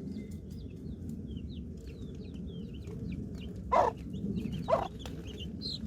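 Birds calling: many short high peeps throughout, with two louder calls about four and five seconds in, over a low steady rumble.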